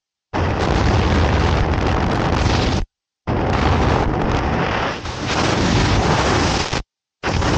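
Freefall airflow blasting across a skydiver's camera microphone: a loud, steady rush of wind noise that cuts out abruptly to silence twice.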